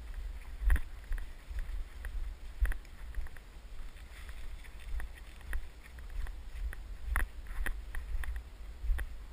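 Footsteps through dry leaves and brush, heard on a body-worn action camera moving through undergrowth, with irregular sharp crunches and snaps. Under them runs a steady low rumble of wind and handling noise on the microphone.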